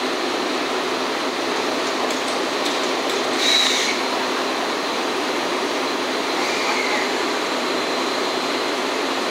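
JNR Class D51 steam locomotive standing with a steady hiss of steam, and a short shrill whistle about three and a half seconds in.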